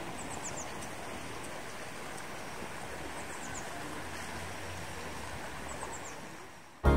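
Outdoor town-square ambience: a steady rushing background noise, with a small bird's high, falling chirps in quick runs of three or four, heard three times. The ambience fades away near the end and music cuts in suddenly.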